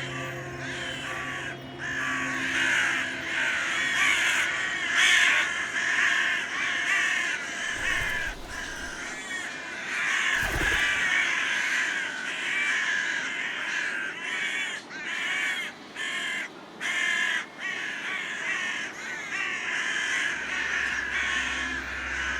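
A flock of crows cawing, with many calls overlapping almost without pause.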